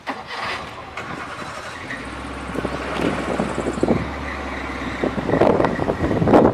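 Safari vehicle running, with a steady low engine hum, joined near the end by a louder rushing noise of wind on the microphone.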